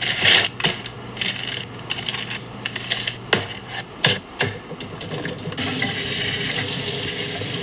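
Vegetables and their packaging handled and set down in a stainless steel mesh colander: a run of sharp clicks, taps and rustles. About five and a half seconds in, tap water starts running onto them with a steady hiss.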